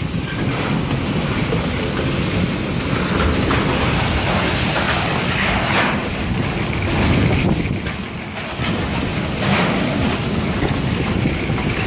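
Strong typhoon wind blowing in gusts and buffeting the microphone. The rushing noise swells and eases every few seconds.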